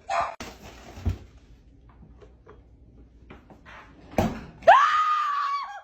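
A person screams in fright near the end: one long scream that rises and then holds, ending abruptly. A dull thump comes about a second in.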